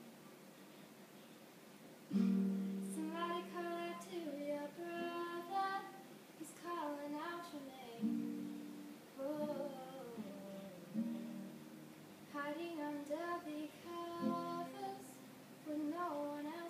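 A young girl singing with acoustic guitar accompaniment. After a quiet opening, a guitar chord is struck about two seconds in and her voice enters shortly after, with new chords every few seconds under the melody.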